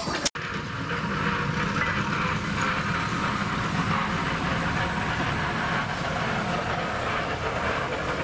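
Small heritage-railway train running, a steady rumble with rail noise. It starts just after a sharp click and a split-second dropout.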